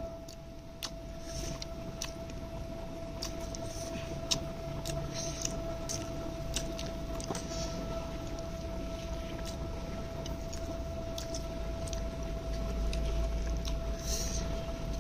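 Quiet handling noise: scattered small clicks and taps over a steady hum that carries one constant high tone, with a low rumble growing louder near the end.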